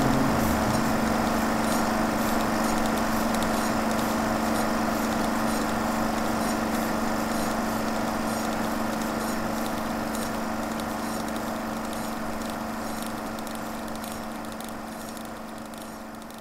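Steady mechanical hum with faint, evenly spaced ticking, slowly fading out toward the end.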